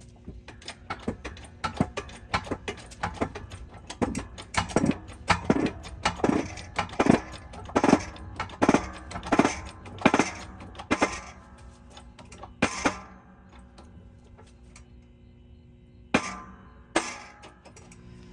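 Steel draw tube being pressed into a cast ZA-12 Zamak hand wheel in a shop press, giving a string of sharp creaks about every three-quarters of a second, growing louder as the press fit goes in, then stopping. Two more creaks come near the end.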